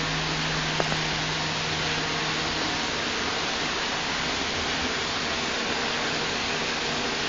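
Steady rush of running, splashing water. A low hum fades out in the first couple of seconds, and there are two light clicks about a second in.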